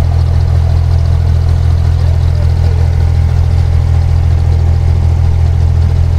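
A boat's engine running at a steady, even pitch: a loud low drone with a constant hum above it and no change in speed.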